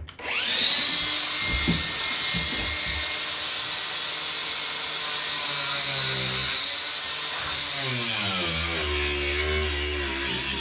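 Power tool with a cutting disc starting up abruptly and running with a steady high whine as it cuts straight lines through the wooden floor.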